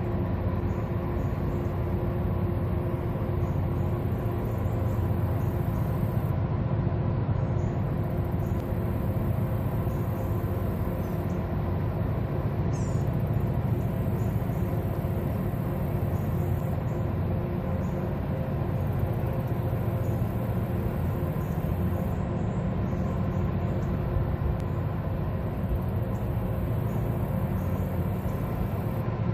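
Steady low rumble of a big towboat's diesel engines working hard to push a large barge tow, with a steady hum over it.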